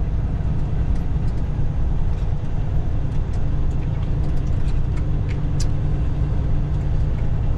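Semi truck's diesel engine and cab noise, a steady low drone heard from inside the cab, with a few faint scattered ticks.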